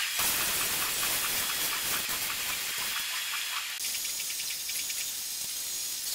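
Hand-pump pressure sprayer hissing as it sprays dishwashing-detergent foam onto a car's windshield. About four seconds in, the sound changes abruptly to a softer, steady hiss.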